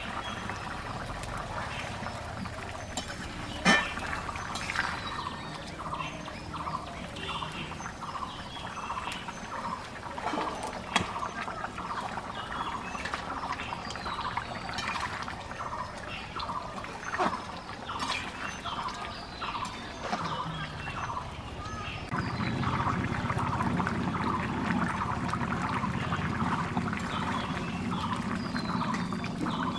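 Fish and vegetable curry bubbling at a boil in a metal kadai over a wood fire, with a few sharp knocks of a metal spatula against the pan. The bubbling grows louder about 22 seconds in.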